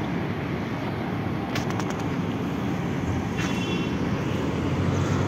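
Steady low rumble of a Tatra T3E tram standing at its stop, with a few light clicks about a second and a half in and a brief higher sound about three and a half seconds in.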